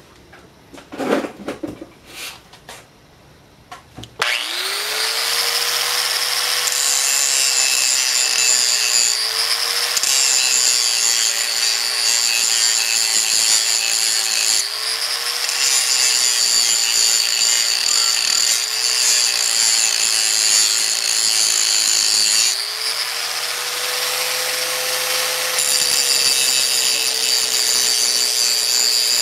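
A few handling knocks, then about four seconds in an angle grinder spins up and runs steadily, its wheel grinding metal off the body of a full roller rocker arm to give it clearance from the rocker stud. The motor's pitch sags a little each time the wheel bears on the metal, then recovers.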